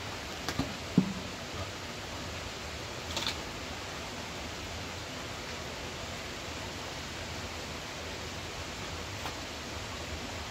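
Steady rushing noise throughout. About a second in come a few knocks and a heavy thump as wet mud is tipped out of a wooden bucket onto the ground. A brief scrape follows a couple of seconds later.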